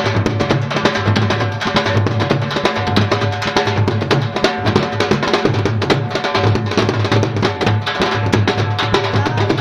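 Punjabi dhol drumming in a fast, steady rhythm with a harmonium melody held over it, played as a ringtone tune.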